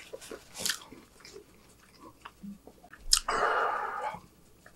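Close-miked mouth sounds of a man chewing burger: faint wet clicks and smacks. A little over three seconds in come a sharp click and a loud breathy exhale lasting about a second.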